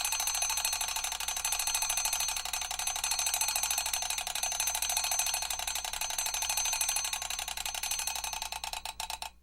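Mechanical alarm clock bell ringing, its hammer striking the bell in a fast, steady rattle. The ringing dies away in the last second and stops abruptly.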